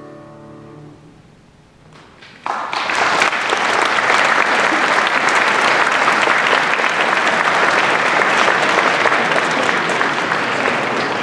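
The last held chord of a mixed choir with piano fades away in the first second. After a short hush, an audience starts clapping about two and a half seconds in and keeps up steady applause, easing slightly near the end.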